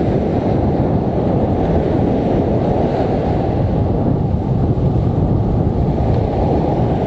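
Breaking surf washing up the beach, under a steady roar of wind buffeting the microphone.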